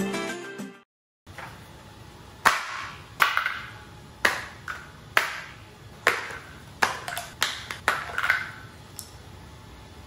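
A brief end of guitar music, then small plastic paint bottles and other painting supplies dropped one after another onto a hard floor: a dozen or so sharp knocks at irregular intervals, each ringing briefly.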